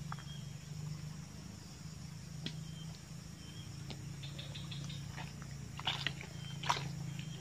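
Footsteps on dry leaf litter and palm fronds, scattered crackles that come thicker and louder about six seconds in, over a steady low hum, with a few faint short high chirps.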